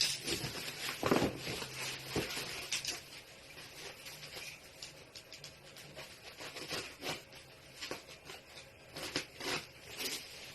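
Packaging being handled and opened: irregular rustling, crinkling and tearing of cardboard and plastic, with scattered taps.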